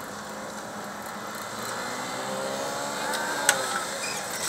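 Street traffic noise as a motor vehicle passes, its engine note swelling and bending in pitch over the second half, with one sharp click about three and a half seconds in.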